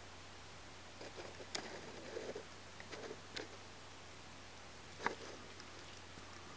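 Faint soft smacking and clicking of a cat licking and grooming itself: scattered small sounds over a couple of seconds, then one sharper click about five seconds in.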